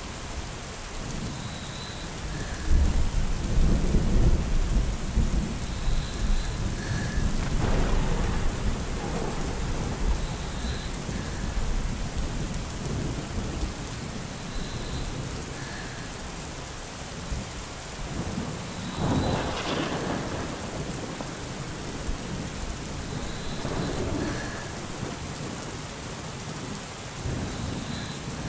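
Steady rain falling during a thunderstorm, with thunder rumbling. The longest, loudest rumble comes a few seconds in, and another swell of thunder comes about two-thirds of the way through.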